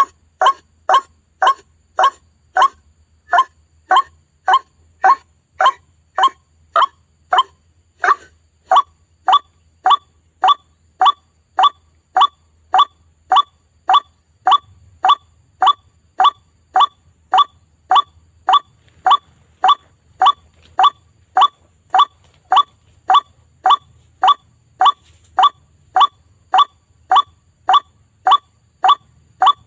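White-breasted waterhen lure call: a short, loud call repeated steadily, nearly twice a second, played as a lure to draw the birds in.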